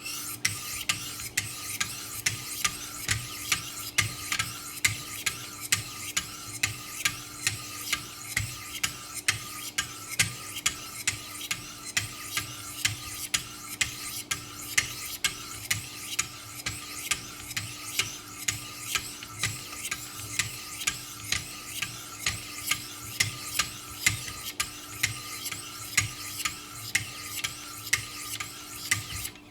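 Wicked Edge guided sharpener's 800-grit diamond stones rasping along a steel knife edge, stroked back and forth in an even rhythm of about two strokes a second.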